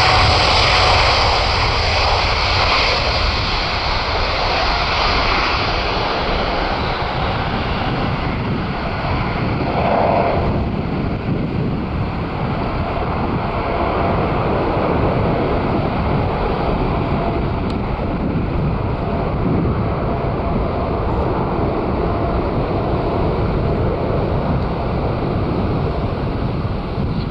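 Boeing 747-8F's four GEnx turbofans running at high power. The high hiss fades over the first few seconds as the jet draws away, leaving a steady low rumble.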